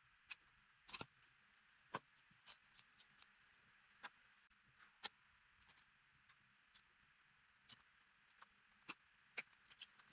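Small 3D-printed plastic piston and connecting-rod parts clicking and tapping as they are handled and fitted together by hand, in irregular single clicks and short clusters over near silence.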